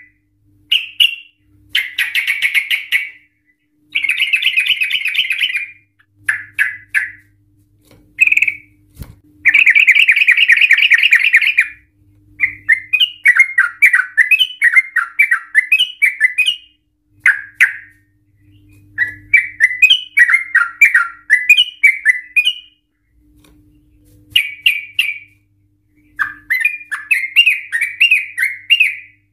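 Yellow-vented bulbul singing loud, bubbling phrases in bursts of one to a few seconds with short pauses between. Some phrases are fast, buzzy trills, the longest about two seconds near the middle, and others are quick runs of rising and falling notes.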